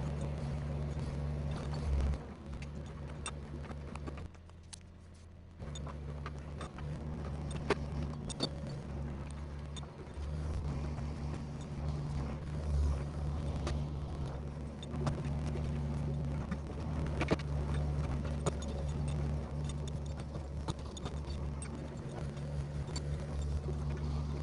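An engine running steadily with a low hum, broken off briefly about four seconds in, with scattered clicks and knocks over it.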